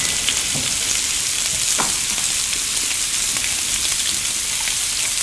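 Slices of pork belly (samgyeopsal) sizzling steadily on a hot grill plate, with a few small pops of fat.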